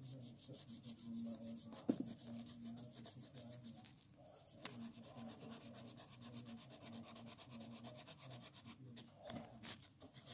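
Pencil shading on paper: faint, rapid back-and-forth strokes of graphite rubbing across the sheet, with one light knock about two seconds in.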